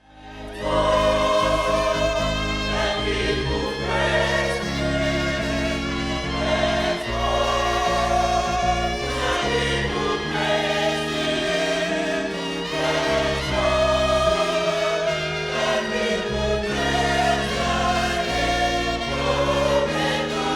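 A choir singing a slow gospel song over sustained chords and stepping bass notes, fading in over the first second.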